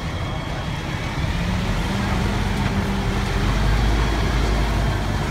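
Scania P400 aerial fire truck's diesel engine running as the truck moves slowly past, with a low, steady rumble that grows louder toward the middle.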